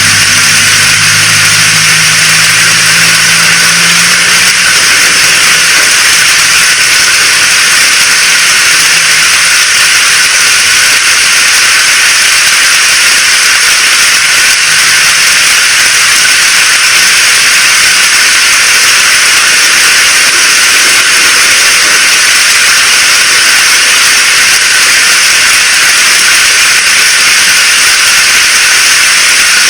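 Heavy rain falling steadily: a loud, even hiss that holds unchanged throughout.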